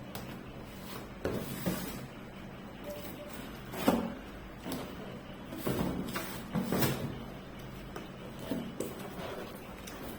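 Objects being handled and set down: a series of irregular knocks and clunks, the loudest about four seconds in, over a faint steady hum.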